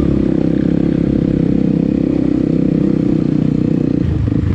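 Dirt bike engine running steadily under the rider while riding a dirt trail, with its note changing about four seconds in.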